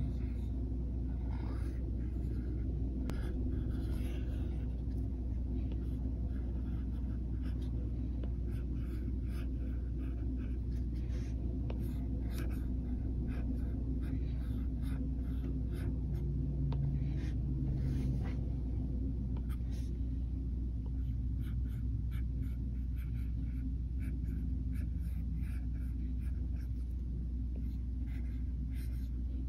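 Apple Pencil tip scratching and tapping on an iPad's glass screen while writing cursive, in short irregular strokes. A steady low hum runs underneath.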